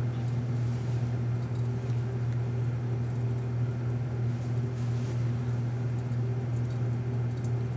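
A steady low electrical or machine hum from workshop equipment, unchanging, with a few faint ticks.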